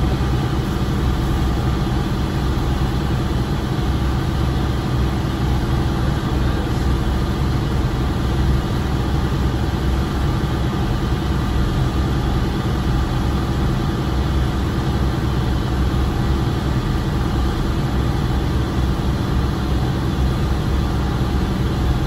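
Twin diesel engines of a 43 ft Albin trunk-cabin trawler running steadily underway, heard from inside the cabin as a steady low drone.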